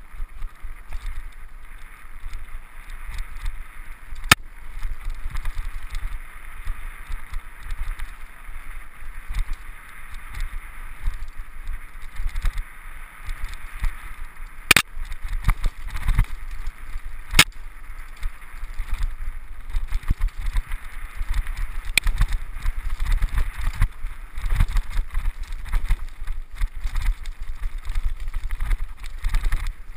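Mountain bike riding a dirt singletrack, heard from a helmet-mounted camera: wind buffeting the microphone and an uneven rumble from the tyres and bike over the rough trail. A few sharp clacks as the bike jolts over bumps.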